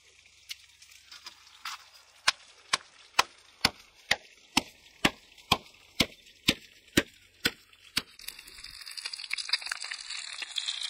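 Stone pestle pounding red chilies and garlic in a stone mortar: a regular run of sharp knocks, about two a second, for some six seconds. From about eight seconds in, a steady sizzle of whole fish frying in a pan.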